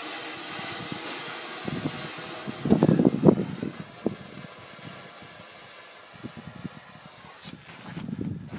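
Compressed air hissing steadily from an air line, thinning and then stopping sharply about seven and a half seconds in. Footsteps crunch on gravel around three seconds in and again near the end.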